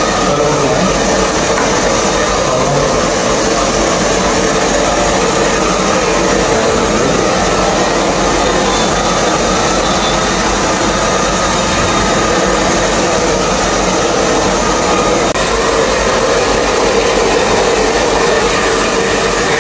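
Handheld hair dryer running steadily and loudly, an unbroken rush of blown air with a steady motor tone, as it blow-dries long hair.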